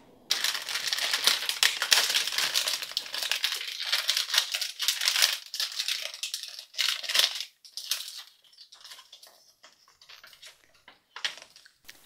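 Plastic blind bag crinkling and crackling as it is torn open and handled, dense for the first few seconds and then in sparser crinkles.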